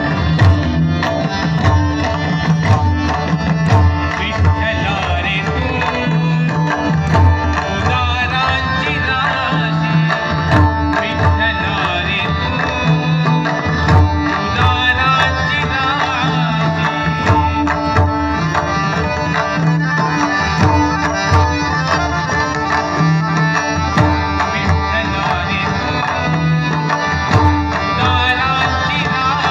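A large massed ensemble of pakhawaj drums, some 125 played together, beating in unison with deep accented strokes, accompanying a voice singing a Marathi devotional abhang.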